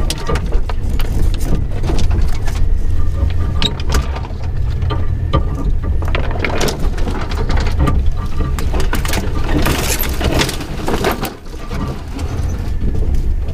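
Suzuki Jimny 4x4 driving slowly along a rough unsurfaced lane: a steady engine rumble with frequent knocks and rattles from the body and suspension over the bumps. Two stretches of louder scraping hiss come about six and ten seconds in.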